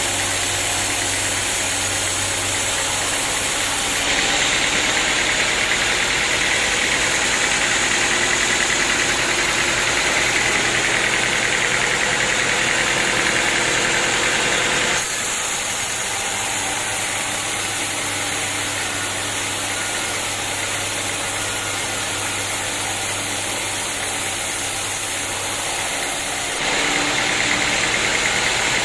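Sawmill machinery running steadily. The sound shifts abruptly three times, getting louder and brighter about four seconds in, duller about halfway through, and brighter again near the end.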